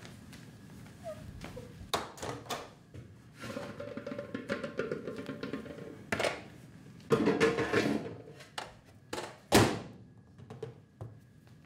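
Music with a percussive beat, over scattered clicks and knocks; about nine and a half seconds in, a loud sharp thunk that matches the microwave door being shut.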